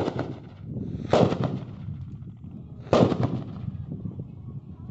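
Homemade potash bombs (sulfur and potash powder packed into pipe) going off: three sharp bangs, one right at the start, one about a second in and one about three seconds in, each followed by a short rumbling tail.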